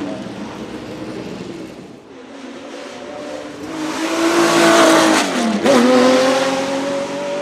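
Porsche 917K's air-cooled flat-12 racing engine accelerating past. It is loudest around the middle, and about five and a half seconds in the pitch drops at a gearshift and then climbs again.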